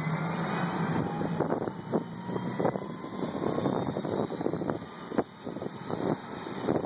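Helicopter turbine engine spooling up, its whine rising slowly in pitch, with gusty wind buffeting the microphone.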